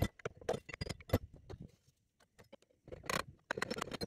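Irregular clicks, knocks and rustles of hands and a tool handling the rusty metal casing of an e-bike hub motor, with a short pause about two seconds in and a denser burst of knocks about a second later.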